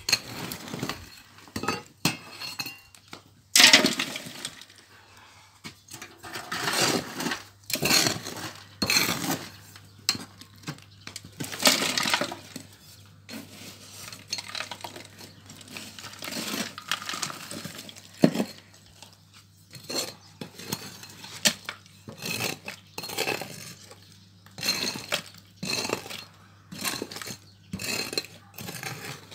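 A metal tool scraping and knocking through charcoal embers and ash in a clay pit oven, raking the coals over a loaf, with irregular scrapes and clinks of the coals.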